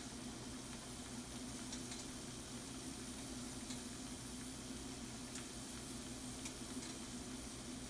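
Shrimp and mushrooms sizzling and simmering in a frying pan: a steady soft hiss with a few faint pops here and there, over a steady low hum.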